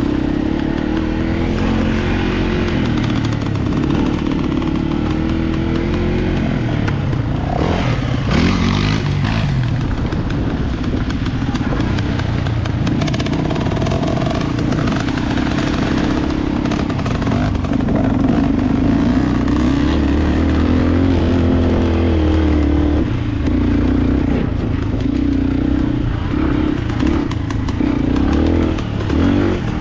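Enduro motorcycle engine running hard off-road, the revs rising and falling again and again.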